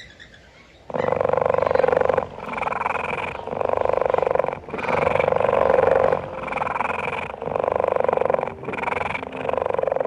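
A loud, rasping animal call that starts about a second in and repeats in stretches of about a second each, with brief breaks between them.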